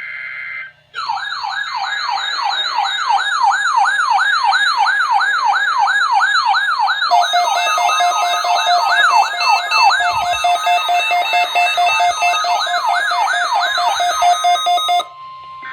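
Weather alert radio receivers sounding their alarms during the weather service's weekly tone alarm test: a loud, fast warbling siren of about three sweeps a second, joined about seven seconds in by a steady tone and pulsing beeps. The alarms cut off suddenly near the end.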